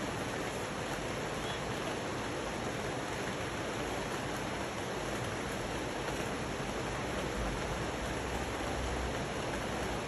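Steady rain falling on rainforest foliage, blended with the rush of a rocky river: an even hiss with no single drops or breaks standing out.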